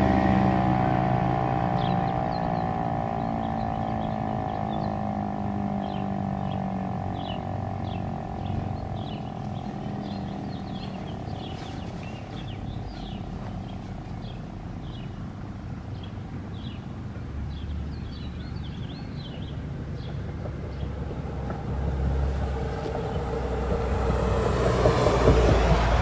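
Federal Signal Eclipse 8 outdoor warning siren winding down after its steady alert tone, its pitch falling slowly as it fades over the first ten seconds or so. Small birds chirp through the middle, and a low rumble swells in the last few seconds.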